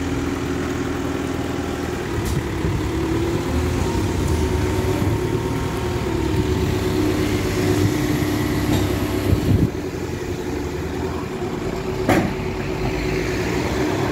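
Forklift engine running steadily, with a steady whine over it that stops about nine and a half seconds in, and a single sharp knock about twelve seconds in.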